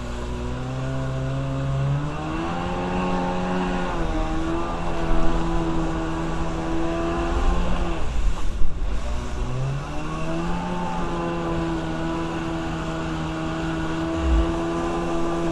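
Kawasaki 550 stand-up jet ski's two-stroke twin engine running under way on the throttle. Its pitch climbs about two seconds in, falls away briefly past the middle as the throttle is let off, then climbs again and holds steady.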